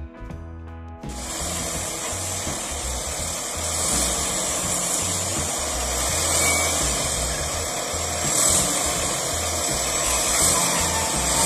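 Strummed guitar music cuts off about a second in, giving way to a steady rushing noise with an uneven low rumble: wind and machine noise around a working sugarcane grapple loader.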